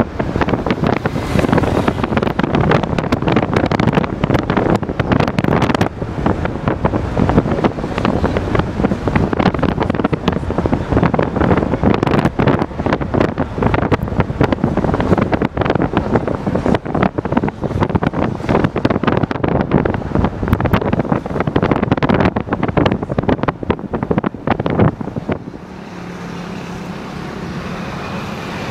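Wind buffeting the microphone of a camera held at a moving car's window, a loud rough rushing. About 25 seconds in it drops suddenly to a quieter, steady car engine and traffic sound as the car slows.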